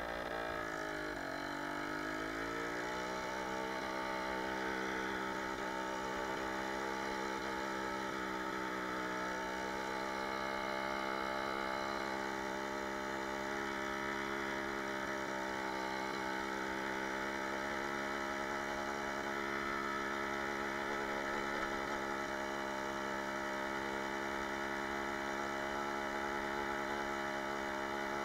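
Jawa 20 Pionýr moped's 50 cc two-stroke single-cylinder engine running as it is ridden. The revs dip and climb back in the first couple of seconds, then it holds a steady drone with a slight dip and rise about nine seconds in.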